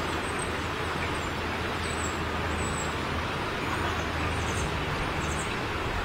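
Steady outdoor background noise: an even hiss over a low, steady, engine-like rumble.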